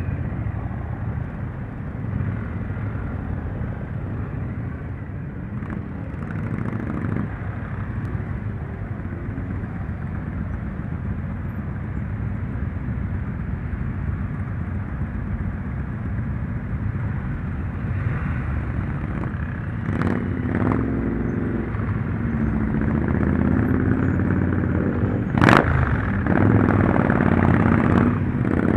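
Motorcycle engines running, a steady low rumble that grows a little louder near the end, with a few sharp knocks past the twenty-second mark, the loudest about twenty-five seconds in.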